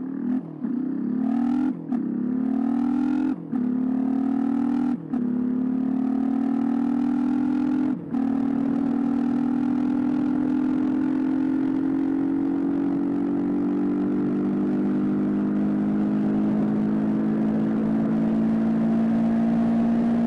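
1995 Suzuki DR125's single-cylinder four-stroke engine at full throttle, revving up and shifting up through the gears, with a short dip in the sound at each of five quick shifts. It is then held wide open in sixth gear, the pitch creeping slowly higher as the bike reaches 45 mph.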